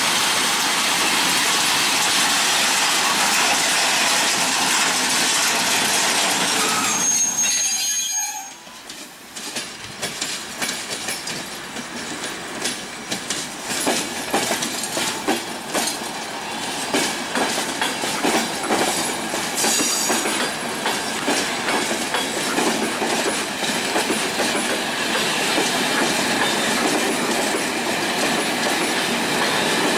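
A freight train of covered hopper wagons rolls past with a steady rumble. After a short dip about eight seconds in, passenger coaches roll by, their wheels clacking over rail joints and squealing briefly now and then.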